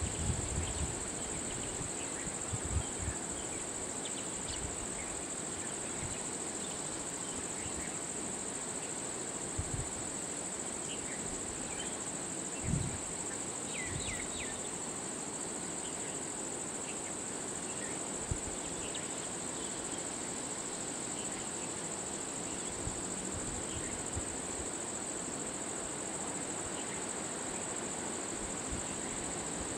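Steady high-pitched drone of insects, with a few brief chirps and occasional soft low thumps.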